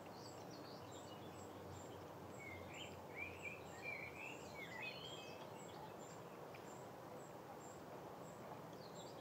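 Quiet outdoor woodland ambience: a steady soft hiss, with a small songbird singing faintly in short warbling phrases for a couple of seconds near the middle. A faint high ticking repeats about three times a second throughout.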